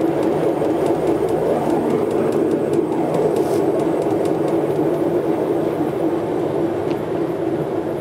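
Old top-loading washing machine motor, fed through a variac, running steadily with a constant mid-pitched mechanical drone.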